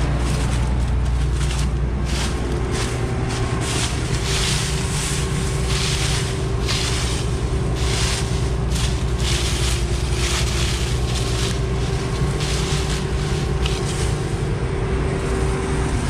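John Deere S660 combine's diesel engine running steadily while the combine stands, with irregular gusts of wind noise on the microphone and rustling of dry corn stalks and stubble.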